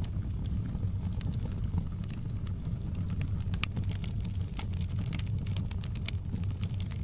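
Wood fire crackling in a fireplace: a steady low rumble of flames with frequent, irregular sharp pops and snaps.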